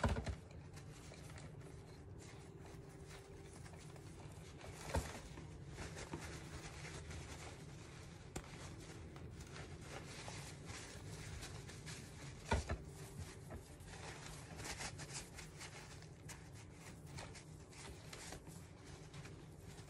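Paper towel rustling and rubbing as excess dark wax is buffed off a resin robin figurine, with a couple of brief knocks, the louder one about two-thirds of the way through. A faint low hum runs underneath.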